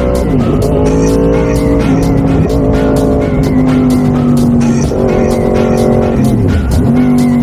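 Yamaha R1 sportbike's inline-four engine running hard on track, its pitch held high and fairly steady. The pitch drops sharply and comes back about half a second in and again near the end, as the throttle is closed and reopened through gear changes.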